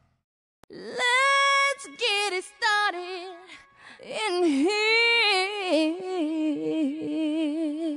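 Unaccompanied solo singing voice holding long notes with a wide vibrato, beginning just under a second in after a moment of silence.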